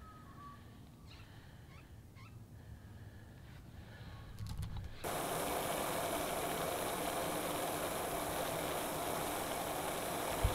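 Portable butane camp stove burner hissing steadily under a pot of water being heated. The hiss starts suddenly about halfway through, after a quiet stretch, and holds loud and even.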